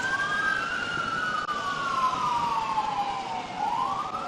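Police car siren on a slow wail: the tone peaks near the start, falls steadily for about three seconds, then starts rising again near the end.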